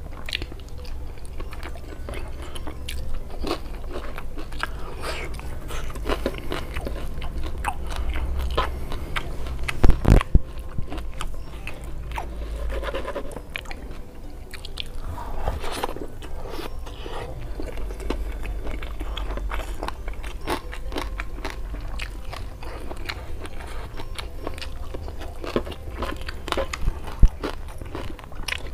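Close-miked chewing and crunching of food eaten by hand: fried eggplant and rice with chilli sambal. There are a few sharp, loud knocks about ten seconds in and again near the end.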